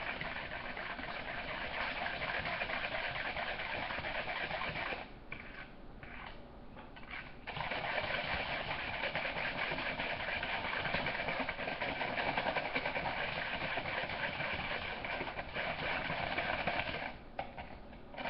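Wire whisk beating a soy sauce and sugar marinade in a bowl, a fast steady clatter, whisked to dissolve the sugar. It stops for a couple of seconds about five seconds in and briefly near the end.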